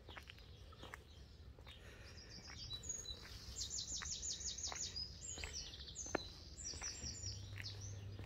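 A small songbird singing: high chirps, with a rapid trill of about ten repeated notes a second from about three and a half seconds in. Footsteps click softly underneath.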